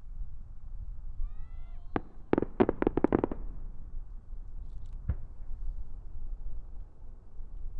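Starmine fireworks: a short rising whistle from an ascending shell about a second in, then a sharp bang, a rapid cluster of about eight shell bursts, and one more bang about five seconds in.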